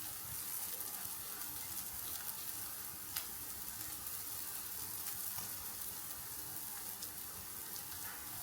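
Paneer and sweet potato tikkis frying in oil in a pan on their second side, a steady sizzle as the outside crisps. A single click is heard about three seconds in.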